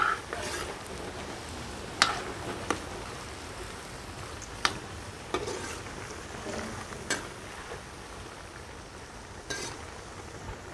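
Cubes of elephant foot yam deep-frying in oil in a metal karahi, a steady sizzle, as they brown. A slotted metal spoon stirs them, clinking against the pan about six times.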